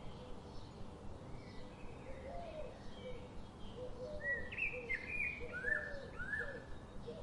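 Birds chirping and calling: many short gliding notes, thickest and loudest about four to six seconds in, over a steady low background hiss.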